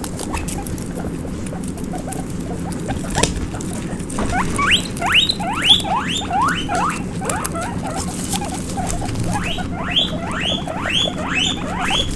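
Baby guinea pig making runs of short rising squeaks ("pui pui"), several a second, in two bouts: one starting about four seconds in and one about nine and a half seconds in. Light pattering of small feet runs throughout.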